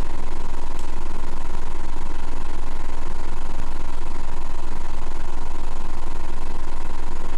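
A steady, unchanging low hum under an even hiss, with a faint steady tone near 1 kHz.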